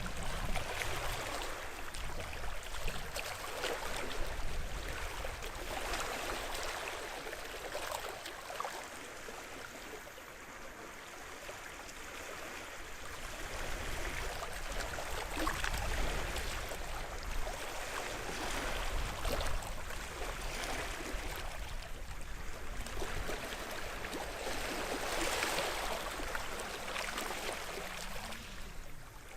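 Small sea waves washing and lapping on the shore of a sheltered bay. The wash swells and falls back every few seconds, with a quieter stretch about a third of the way in and a fuller wash near the end.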